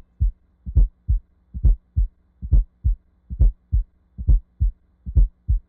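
Heart sounds in a fourth-heart-sound (S4) gallop rhythm at about 70 beats a minute: each beat is a soft S4 thud just before the loud first sound (lub), followed by the second sound (dub). The S4 atrial gallop is the sign of stiff, non-compliant ventricles that do not relax normally (diastolic dysfunction).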